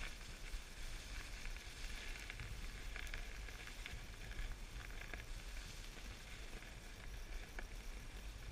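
Snowboard sliding and scraping over groomed snow in a steady hiss, with wind rumbling on the microphone.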